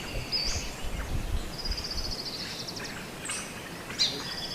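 Wild birds calling: several high chirps, a fast trill about a second long near the middle, and a sharp call near the end. A low rumble sits under the first half.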